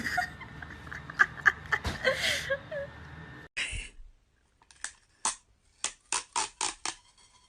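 Sharp clicks and knocks, scattered at first, then a quick run of crisp clicks about five a second after a short quiet gap.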